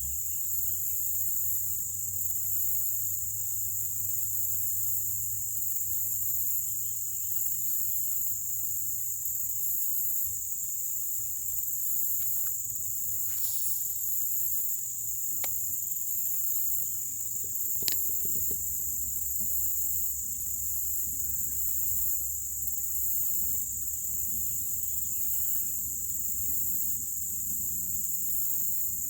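Steady high-pitched chorus of insects such as crickets or katydids, shrilling without a break. A few sharp clicks stand out about halfway through.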